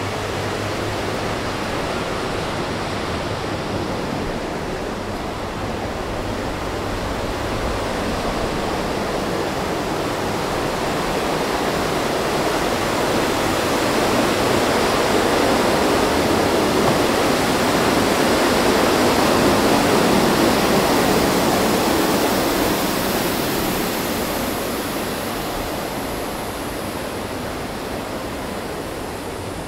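Rushing water of the River Avon, a steady noise that grows louder to a peak about two-thirds of the way through and then fades again.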